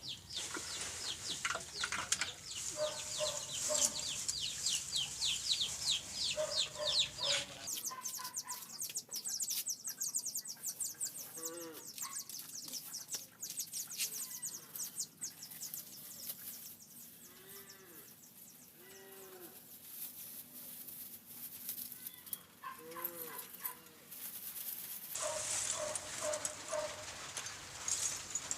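Farm animals calling: short arched cries repeat several times through the middle. Dense, fast, high-pitched ticking fills the first several seconds and returns near the end.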